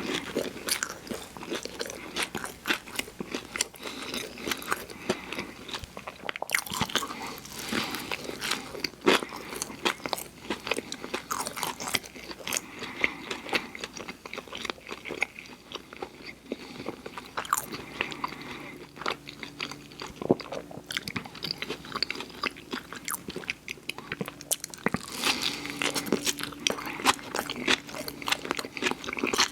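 Close-miked eating of fast food: steady chewing and crunching, with frequent biting and wet mouth clicks.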